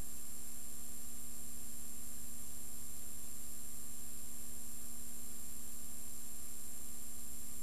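Steady electrical hum and hiss with nothing else in it: the empty soundtrack of a silent film transfer.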